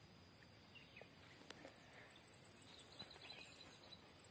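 Near silence: faint outdoor ambience with a high, pulsing insect trill that grows clearer about halfway through, and a few faint chirps.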